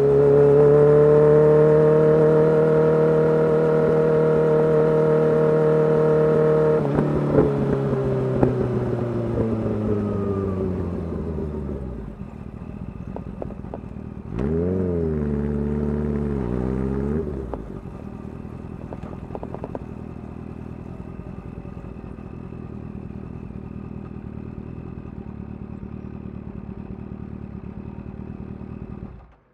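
Kawasaki Ninja H2's supercharged inline-four through a full titanium exhaust, held at high revs for about seven seconds. The throttle then closes and the revs fall away with pops and crackles from the exhaust, settling to idle. There is one short throttle blip about halfway through, then it idles until the sound stops abruptly near the end.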